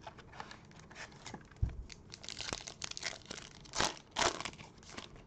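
Foil wrapper of a 2020-21 NBA Prizm trading card pack crinkling and tearing as it is ripped open by hand, with two loud rips a little before the end. A dull thump comes about a second and a half in, before the tearing starts.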